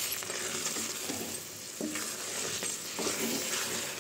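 Thick paneer butter malai gravy sizzling in a kadhai as a wooden spatula stirs it, with a few short scrapes against the pan.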